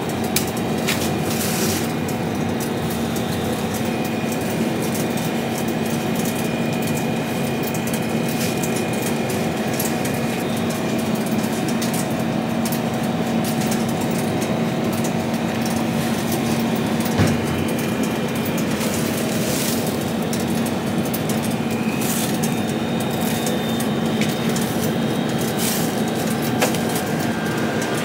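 Steady mechanical hum with a low drone and a few faint higher tones, broken by a few light clicks and taps.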